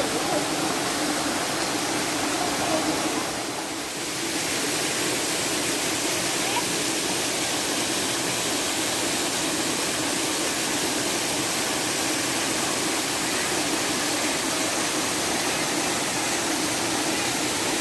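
Steady rush of water flowing and falling over rocks in a stream and waterfall, dipping slightly about four seconds in.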